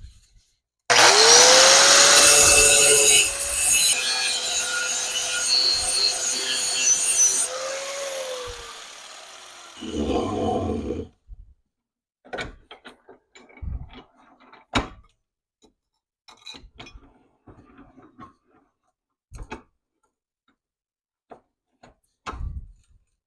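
An electric power tool starts about a second in with a rising whine and runs with a harsh rasping noise for several seconds, then winds down with its pitch falling. A short low rumble cuts off abruptly, and scattered knocks and clicks follow.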